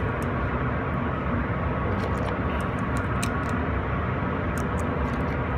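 Steady low background rumble with a few faint light clicks; no gunshots.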